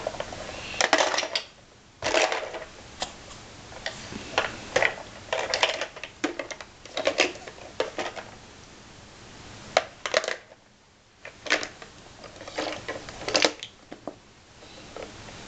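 Plastic toy blocks clattering and knocking against a plastic shape-sorter bucket as they are picked up, dropped in and handled: irregular sharp clicks and clacks in quick clusters, with a couple of short pauses.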